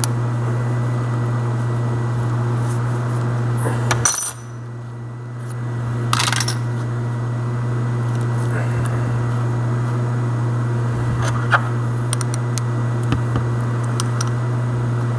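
Ryobi 4-volt power carver running with a steady buzzing hum, with metal clicks and clinks as its chisel is handled. The hum stops after a sharp click about four seconds in and starts again a second and a half later.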